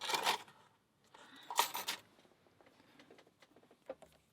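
Lockpicking tools clicking and rattling in a lock: a short scraping rattle at the start, a louder brief rattle a little before the middle, then sparse faint metal ticks.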